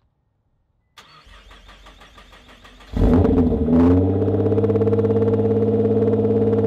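Cold start of a roughly 1000 hp Nissan GT-R R35's twin-turbo V6. The starter cranks for about two seconds, the engine catches about three seconds in with a loud flare of revs, then settles into a steady idle.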